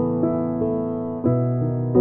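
Keyboard playing soft piano chords with a moving melody line on top, a new chord struck a little past halfway through. There is no singing.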